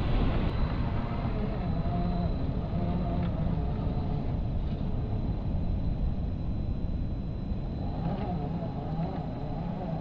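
Wind buffeting the microphone, with the electric motor and drivetrain of an RC4WD Gelande II Land Cruiser scale crawler whining faintly as it climbs a rough slope. The whine is heard for the first few seconds and again near the end.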